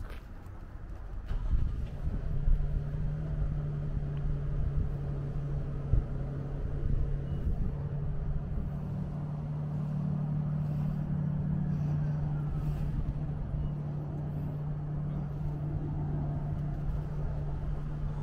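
A car engine idling: a steady low hum that sets in a second or so in and holds, over a low rumble.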